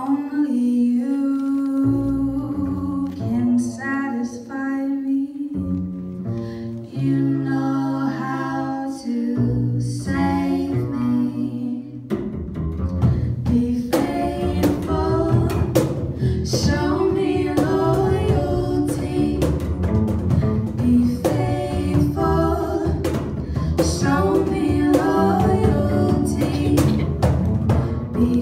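Two women singing with an upright double bass in a small live band. About twelve seconds in, a cajón comes in with a steady beat and the music gets fuller.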